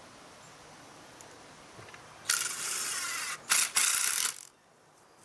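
A ratcheting mechanism clicking in three bursts: one of about a second, a brief one, then one of about half a second.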